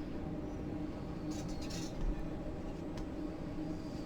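Quiet kitchen handling of chicken pieces being coated and set on a pan: a brief soft rustle about a second and a half in and a small click near the three-second mark, over a steady low hum.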